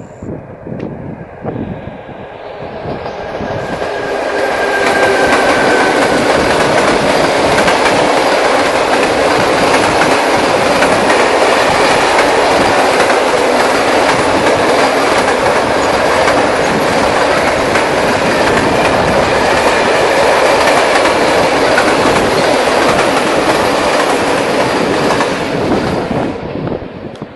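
Freight train hauled by an electric locomotive passing at close range, a long string of tarpaulin-covered wagons running by on the track. The noise swells over the first few seconds, stays loud and steady as the wagons pass, and drops off near the end.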